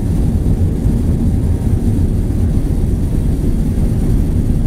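Steady low rumble of a jet airliner's cabin in flight, the engines and rushing airflow heard from a window seat.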